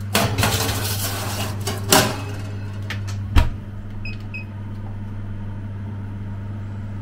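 Metal baking tray rattling as it slides into a Cookmaster range oven, with a clatter about two seconds in and the oven door shutting with a heavy thud a moment later. Two short electronic beeps from the oven's timer buttons follow, over a steady low hum.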